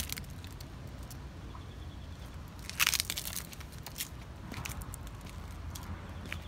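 Dry fallen leaves crunching and crackling underfoot, with a dense cluster of crunches about three seconds in and scattered lighter crackles around it. A sharp click right at the start.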